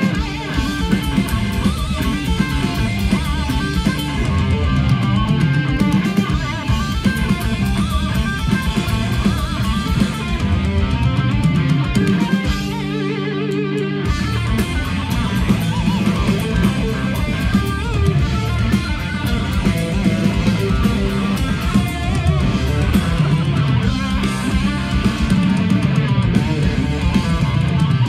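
Live heavy metal band playing loud, with distorted electric guitars and a drum kit. About halfway through, the drums stop for a second or so and a held guitar chord rings on its own, then the full band crashes back in.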